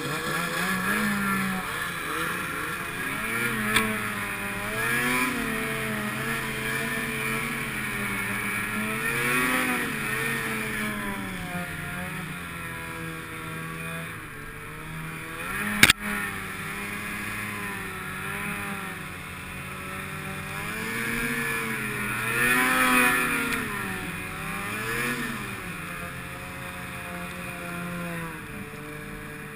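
Snowmobile engine running under a rider, its pitch rising and falling again and again as the throttle is opened and eased off. A single sharp click about sixteen seconds in.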